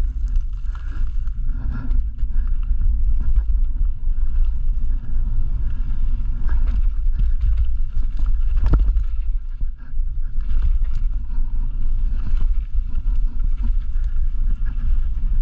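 Mountain bike riding fast down a dirt forest trail: steady wind rumble on the microphone with the bike rattling and clattering over roots and stones, and a sharp knock about nine seconds in.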